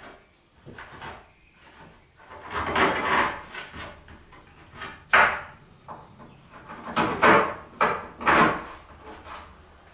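Wooden board being handled against a plywood tabletop: a few scrapes and knocks of wood on wood, the sharpest knock about five seconds in.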